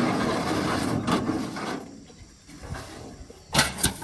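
A rough scraping rustle for about two seconds, then two sharp knocks close together near the end.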